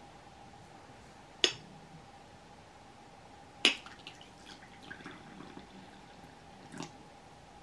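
Tea being poured from a ceramic teapot into a china cup: a thin trickle of liquid for a few seconds, preceded by two sharp china clinks about one and a half and three and a half seconds in, with a lighter clink as the pour ends.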